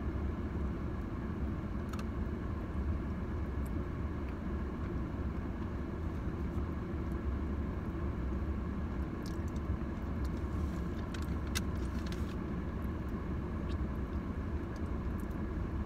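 Steady low rumble of a car heard from inside the cabin, with a few faint clicks about nine to twelve seconds in.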